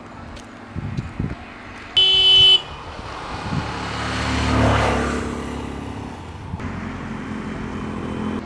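A vehicle horn toots once, loud, for about half a second. Then a motor vehicle drives past, its engine noise swelling and fading away.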